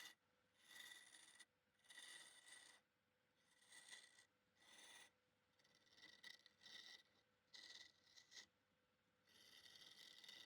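Faint, repeated scraping strokes on wood, roughly one a second, each lasting well under a second.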